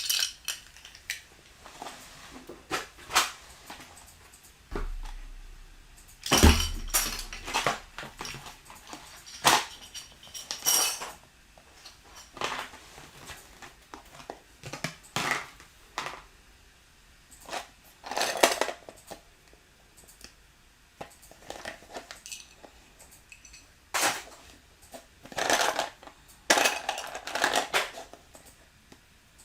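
Plastic building bricks clicking and clattering as they are handled and sorted by hand: irregular sharp clacks with several longer rattling runs, as when pieces are rummaged through in a pile.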